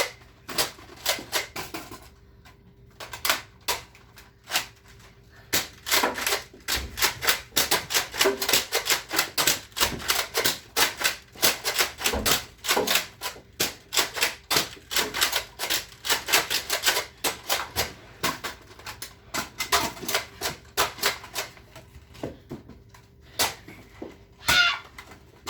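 Nerf blasters clacking rapidly as they are primed and fired, a steady run of sharp plastic clicks several times a second.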